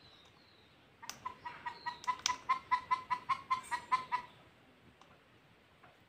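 Pet green parakeet mimicking a chicken's clucking: a quick run of about sixteen short, evenly spaced clucks, about five a second, starting about a second in and ending after about three seconds, loudest in the middle.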